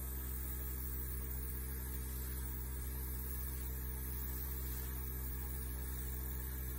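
Small electric heat gun running: a steady low hum with even overtones and no change in pitch.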